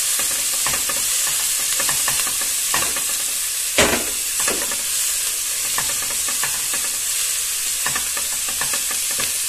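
Chopped onion and green tomato sizzling in oil in a nonstick pan while a plastic spatula stirs them, scraping the pan in short strokes. One sharper knock about four seconds in.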